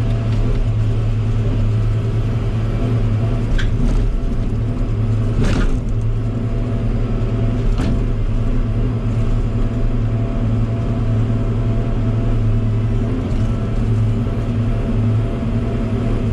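Log loader's diesel engine running steadily at a constant note, with a few sharp knocks, about three to four seconds in, five and a half seconds in, and around eight seconds in.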